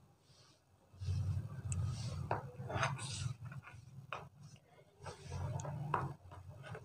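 Metal spoon scraping through frozen ice cream in a plastic tub and knocking against dishes: a scattered series of short clicks and scrapes, over a low hum that comes and goes.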